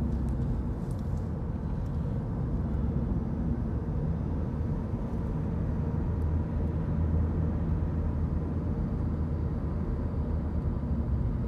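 A car in motion heard from inside the cabin: a steady low rumble of road and engine noise.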